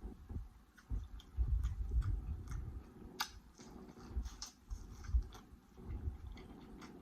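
Close-miked chewing and biting of seafood-boil food, with wet mouth clicks and lip smacks scattered through it; the sharpest click comes about three seconds in.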